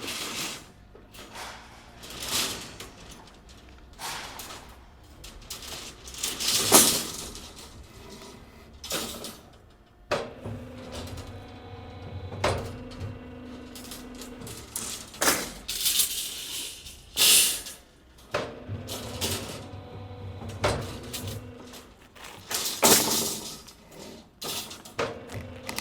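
Construction work: an irregular run of metal clanks, knocks and scrapes, some sharp and loud. A steady machine hum joins about ten seconds in.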